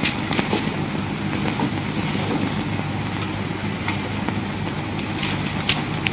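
Steady low hum and hiss of an old optical film soundtrack, with a few faint scattered clicks.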